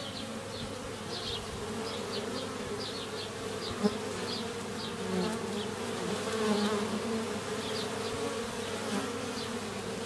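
Honeybees buzzing at a hive entrance: a steady hum of many bees flying in and out around the hive front.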